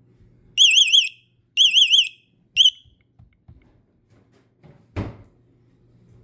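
Vivint alarm panel's fire alarm sounding a high, rapidly warbling tone in three pulses about a second apart, the third cut off short. A single knock follows a couple of seconds later.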